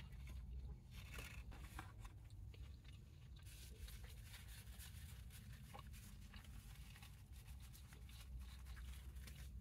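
A person chewing a bite of a Big Mac close to the microphone: faint, irregular crunching and wet mouth clicks.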